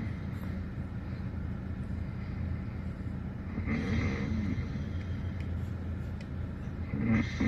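Dog snoring: a snore lasting about a second comes once about halfway through and again near the end, over a steady low hum.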